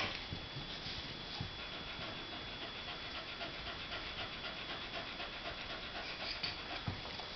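Dog panting with its mouth open, a quick, even run of breaths.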